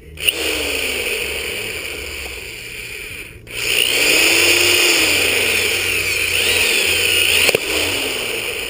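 Power drill boring into metal, running in two stretches with a brief stop about three and a half seconds in; the second stretch is louder, with the bit squealing and a sharp click near the end.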